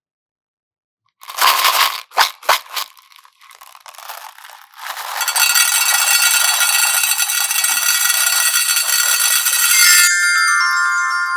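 Crunching and crackling of clay or slime being handled, with a few sharp cracks in the first seconds. From about halfway a dense, shimmering, music-like sound takes over, giving way to ringing chime-like tones near the end.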